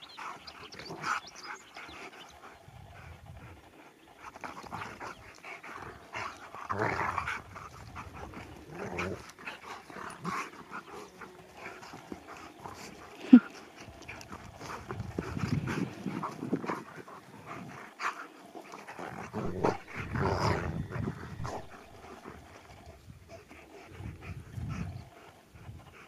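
A husky and another dog play-fighting: rough growls and grunts in irregular bursts, with one short, sharp cry about halfway through that is the loudest sound.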